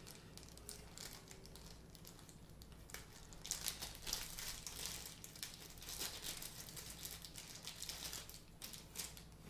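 Small clear plastic bag crinkling as hands unwrap a small accessory from it: faint, irregular crackles that grow louder and busier from about three and a half seconds in.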